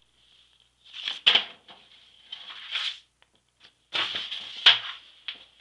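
Rustling and handling noises with two sharp knocks, about a second in and again near the end, over a faint steady high-pitched whine.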